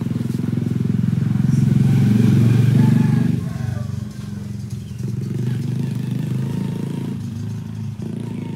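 A small motorcycle engine running close by, swelling to its loudest about three seconds in, then dropping suddenly and carrying on more quietly.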